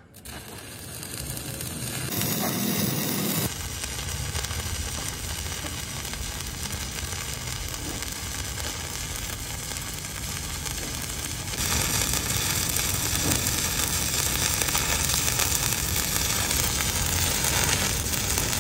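Stick (electrode) arc welding on the seam of a steel air compressor tank: a steady crackling sizzle of the arc. It builds up at the start and gets louder about two-thirds of the way through.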